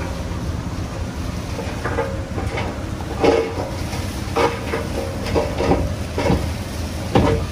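Komatsu D58P crawler dozer working: a steady diesel engine rumble under irregular metallic clanks and squeaks from its steel tracks, about one every half second to second.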